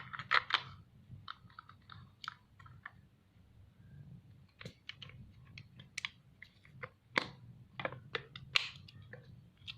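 Irregular hard-plastic clicks, taps and crunches as a small action camera is handled and fitted into its protective plastic housing.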